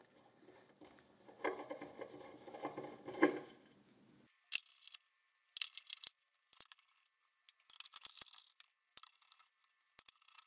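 Small screwdriver backing the tiny machine screws out of the top plate of a ZWO electronic filter wheel. Faint handling noise first, then short scratchy bursts of metal on metal about once a second, with small screws clicking as they are set down.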